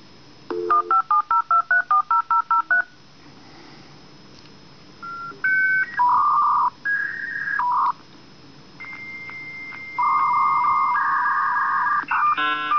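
Dial-up modem connection sound: a quick run of about a dozen touch-tone dialing beeps, then a sequence of changing answer and handshake tones with buzzing static, ending in a rapid chatter of tones. It sounds horrible.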